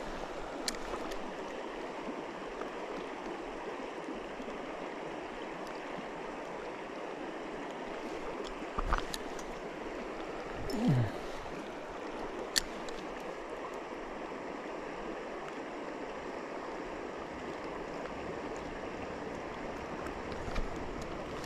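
Shallow river running over stones, a steady rushing of water. A few light clicks come through it, and about halfway through there is a brief low sound that drops in pitch.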